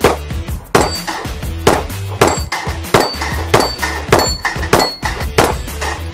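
Rapid pistol fire from a 9mm 1911 (Nighthawk Custom President), about two shots a second, with steel plate targets ringing as they are hit, over background music with a steady low beat.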